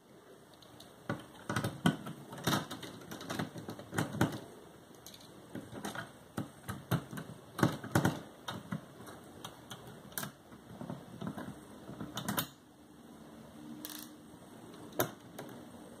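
Precision screwdriver working small screws out of a mini PC's metal chassis: irregular light clicks and taps of the tip against the screw heads and case, with a quieter pause a few seconds before the end.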